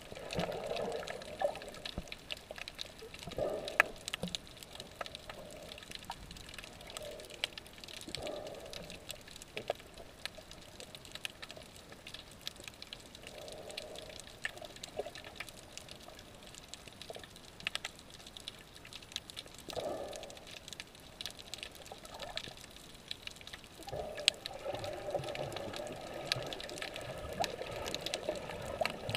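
Muffled underwater water noise around a submerged camera: irregular swelling and sloshing of water, heavier at the start and again near the end, with scattered sharp faint clicks throughout.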